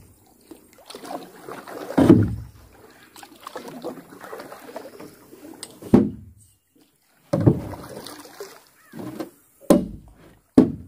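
Knocks and thumps on a small fishing boat, about five hard ones at uneven intervals, with softer scraping and shuffling noise between them.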